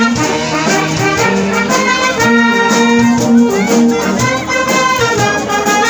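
An air force band playing live: saxophones and brass holding melodic notes over a steady beat.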